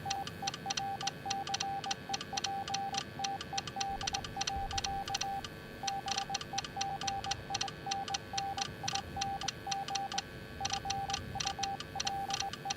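Morse code: a single mid-pitched beep keyed on and off in short dots and longer dashes, with short pauses between groups, and sharp clicking along with it.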